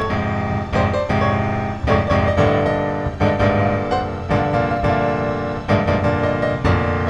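Background music led by piano, with frequent notes and chords.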